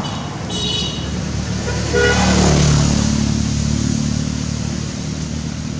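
A motor vehicle passing by: loudest about two seconds in, its pitch falling as it goes past, then a low hum fading away, over a steady traffic rumble. A brief high-pitched squeak sounds about half a second in.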